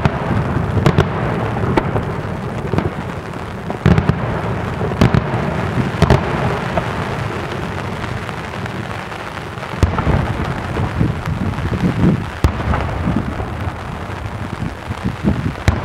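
Daytime fireworks shells bursting in the air: repeated sharp bangs every second or two over a continuous rumble and crackle of further detonations.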